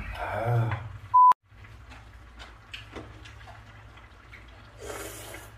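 A short, loud electronic beep about a second in, followed by quiet table sounds: scattered light clicks of chopsticks and dishes over a low steady hum.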